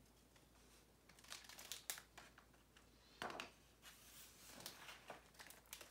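Faint paper rustling and crinkling as a picture book's pages are turned and handled, with a few small taps. It starts about a second in, with a louder rustle about three seconds in.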